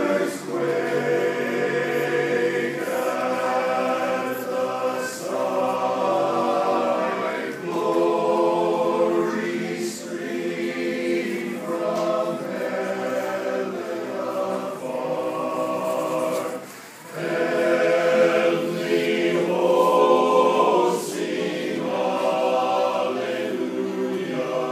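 Men's barbershop chorus singing a cappella: full held chords in close harmony that shift every second or two, with one short break for breath about seventeen seconds in.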